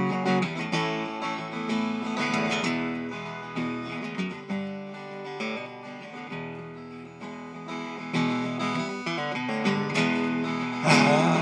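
Acoustic guitar played solo, strummed and picked. The playing softens through the middle, picks up again about eight seconds in, and a singing voice comes in right at the end.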